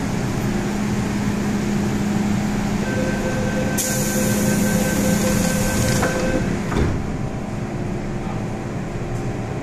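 Inside an MTR M-Train carriage: a steady hum with a high hiss of released air about four seconds in, lasting some two seconds, then a single thump about seven seconds in.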